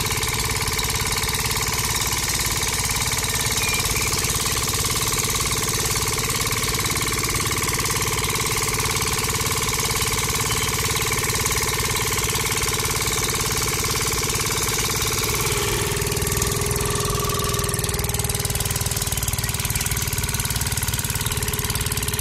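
Small engine of a homemade mini tractor running steadily with a fast, even chugging. Its pitch dips slightly about two-thirds of the way through.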